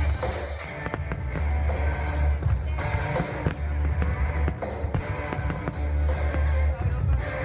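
Loud pop-rock music with a heavy pulsing bass beat, drums and guitar.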